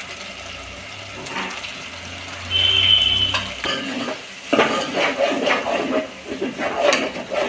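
Spoon or spatula stirring and scraping spice masala as it fries in oil in a pan, with sizzling. The clatter of stirring grows louder past the middle.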